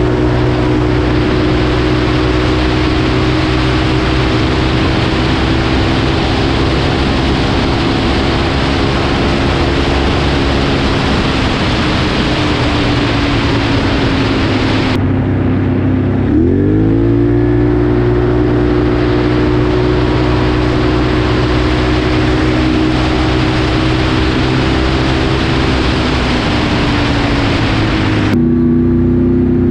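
Can-Am Renegade 1000R ATV's V-twin engine, fitted with dual Two Brothers exhausts, running hard at high revs over 100 km/h, with wind rushing over the microphone. About halfway through the engine note sags briefly, then climbs sharply back up and holds steady.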